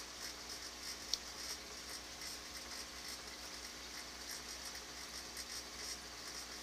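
Faint, steady bubbling and trickling of aquarium water over a low hum, with small irregular ticks and one sharp click about a second in.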